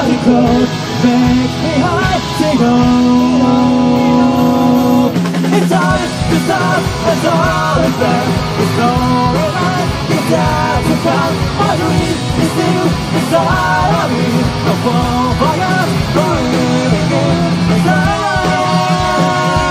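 Rock band playing live in a punk-rock style: electric guitar, bass and drums with a sung vocal line over them.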